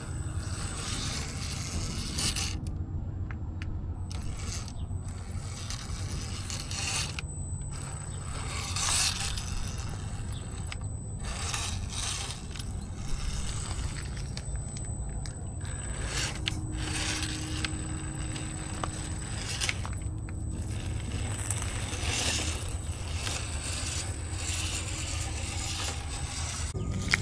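Axial Capra RC rock crawler driving in stop-and-go bursts, its electric motor and gears whining under a scraping, grinding noise of the drivetrain and tyres working over rough ground.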